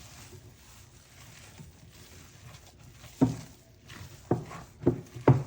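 Hands mixing thick flour-and-yogurt batter in a bowl: faint soft rustling, then four wet squelching slaps in the last two and a half seconds.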